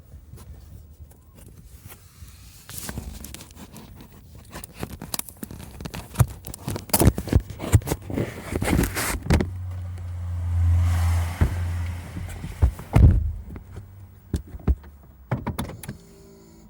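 Toyota Camry making an odd noise under braking: a string of sharp knocks and clicks, with a low rumble that swells about ten seconds in and fades again.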